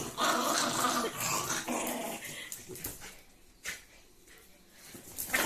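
A Pomeranian growling in rough, broken bursts as it tugs at a cloth garment during play, for about the first two seconds. It then goes quieter, with a couple of light knocks.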